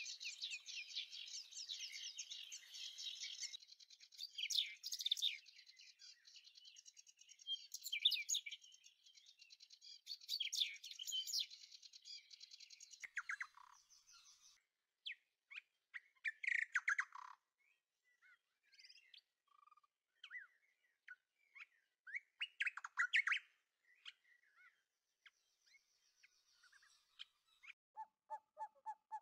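Small birds chirping and singing, a dense chorus of quick high chirps that thins after about twelve seconds into scattered separate calls, with a repeated lower call starting near the end.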